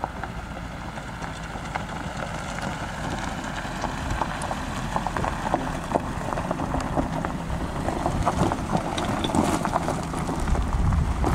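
Renault Mégane coupé driving slowly over a rocky desert track: the engine runs low and steady while the tyres crunch and click over loose stones, growing louder as the car approaches.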